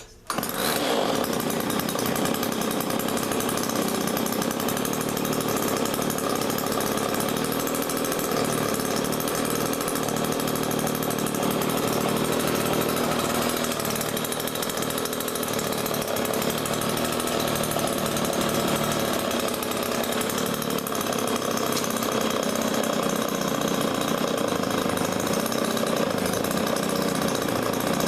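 Rebuilt Homelite two-stroke chainsaw engine catching about half a second in and running steadily: the saw runs again after sitting for years.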